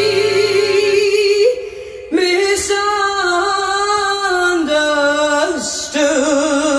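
A recorded song played back on a hi-fi system: a singer holds long notes with a wavering vibrato. There is a brief lull about one and a half seconds in, and a new phrase begins near the end.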